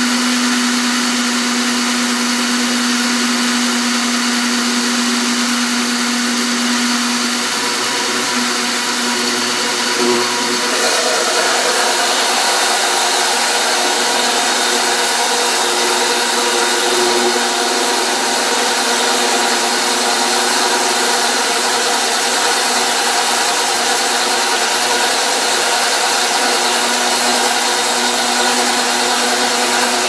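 Household blender running continuously, whirring through a thick mix of cooking oil and liquid laundry detergent for homemade bar soap. Its sound shifts about ten seconds in, as the power goes up and it blends faster.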